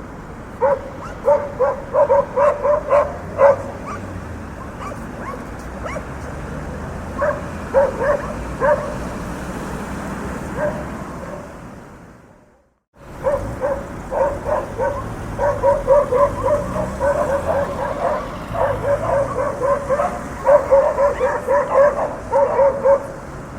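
Dogs barking in quick runs of short barks over a steady low rumble of street traffic. About halfway through, the sound fades out to silence for a moment and then comes back, with the barking going on.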